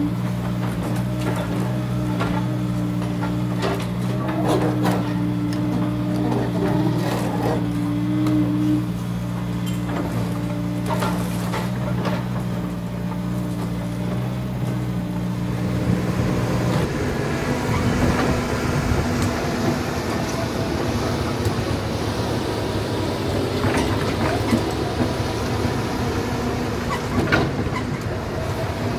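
Komatsu PC200 hydraulic excavators working: diesel engines running with a steady hum, with scattered knocks and clanks as the buckets dig. About halfway through, the steady hum gives way to a rougher, noisier engine sound.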